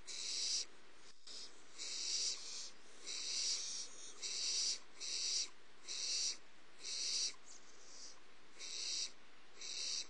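Barn owlets giving repeated rasping hiss calls, each about half a second long, roughly one a second.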